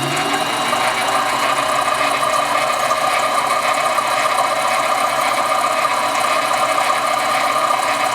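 Harbor Freight 7x10 mini lathe running steadily with its motor and gear train turning, spinning an aluminium tube in the chuck without cutting as a test for wobble.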